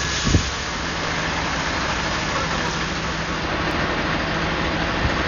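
A vehicle engine idling steadily under a constant hiss, with one brief thump just after the start.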